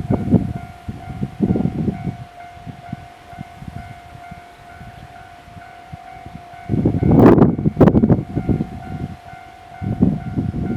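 Japanese level-crossing warning bell ringing in a fast, steady repeating ding. Gusts of wind rumble on the microphone over it, loudest about seven seconds in.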